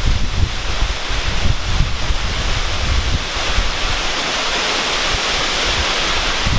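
Wind buffeting the microphone in uneven gusts, over a steady rushing hiss that grows a little fuller about halfway through.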